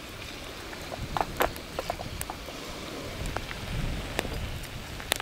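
Beef mince sizzling in hot oil in a small frying pan over a wood-burning folding bushbox stove, with a steady hiss and scattered sharp crackles and pops.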